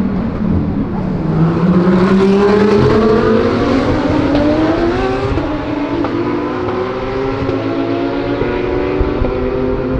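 GT3 race car engines at full throttle, climbing steadily in pitch for about five seconds, dropping sharply at an upshift, then climbing again.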